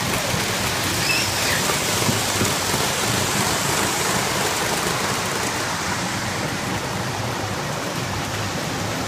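Model trains running on the O-scale layout's track: a steady rushing rumble of wheels on rail.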